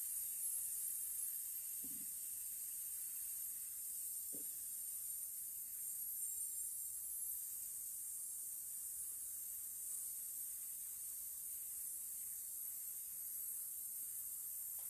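A woman's long, steady hissed "S", held without a break as a singing breath-support exercise: the ribs are kept out against the outflowing air to train and strengthen the support muscles.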